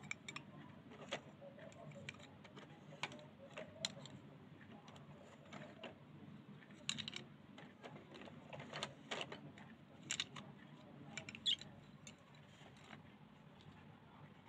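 Coloured pencils and plastic felt-tip markers clicking and rattling against each other as a hand sorts through them in a wicker basket. The light clicks are scattered throughout and come in louder clusters in the second half.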